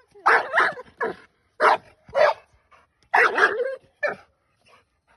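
A dog barking in short, sharp barks: a quick pair, a few single barks, then a rapid cluster about three seconds in.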